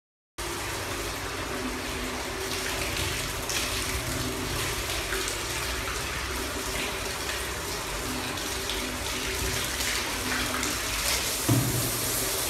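Water running from a hose and splashing onto a tiger's fur, a steady rush that starts abruptly about half a second in. A brief thump comes near the end.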